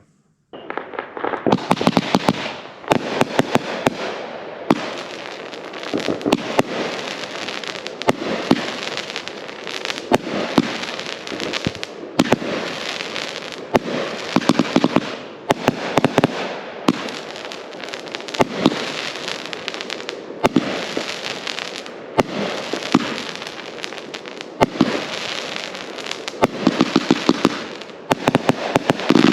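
A 33-shot 500-gram consumer firework cake firing: a rapid string of launch thumps and aerial bursts in quick volleys of its 3/4-inch and 1-inch tubes, with crackling throughout, starting about half a second in.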